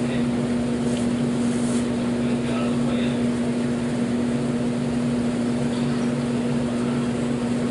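Countertop air fryer running: a steady, unbroken motor-and-fan hum with a strong low tone.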